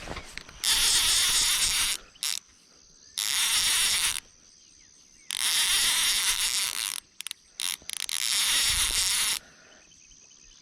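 Fishing reel buzzing while a hooked fish is fought, in four sudden bursts of one to two seconds each with short pauses between.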